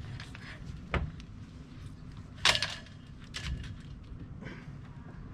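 Hobie 16 mast and its rigging knocking and clattering as the mast is handled: a sharp knock about a second in, then a louder rattling clatter a second and a half later and a smaller one after that.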